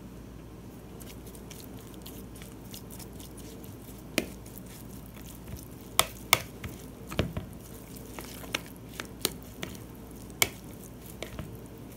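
A metal spoon stirring and turning flaked canned albacore tuna in a bowl: soft squishing with irregular sharp taps of the spoon against the bowl. The taps come more often from about a third of the way in, over a low steady hum.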